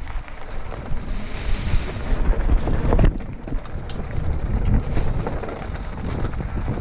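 Wind rushing over the microphone while a fat-tire electric bike rolls down a dirt trail covered in dry leaves, with a few short knocks and rattles as it goes over bumps.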